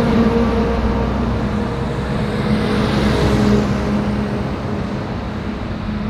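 Jet engines of a widebody twin-engine airliner rolling out on the runway just after touchdown: a loud, steady rushing roar with a low hum, swelling to a peak about halfway through and then easing off.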